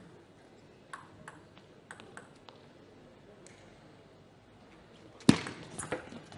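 Table tennis ball ticking sharply off bats and table in a rally, a click every third to half second. About five seconds in comes a sudden, much louder burst of noise as the point ends.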